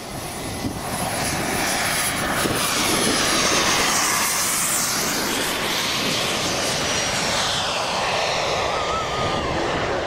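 RC model jet flying past: its engine noise swells to a peak about four seconds in, then falls in pitch as it moves away. A thin high whine fades out in the first few seconds.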